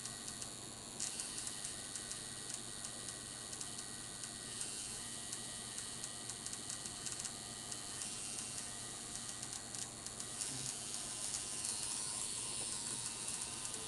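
Electric tattoo machine buzzing steadily as its needle works into the skin of a forearm.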